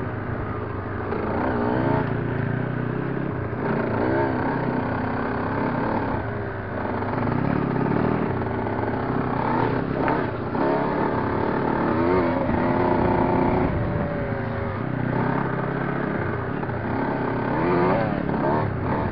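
Enduro dirt bike engine heard from a camera mounted on the bike, its revs rising and falling over and over as it rides a rough trail.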